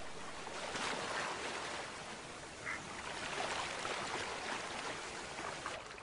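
Water splashing and sloshing as a brown bear swims and wades through a river, an uneven wash of splashes.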